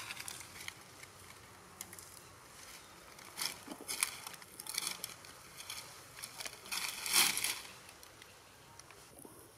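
Dry fallen leaves rustling and crunching in irregular bursts as monkeys move about on them, loudest about seven seconds in.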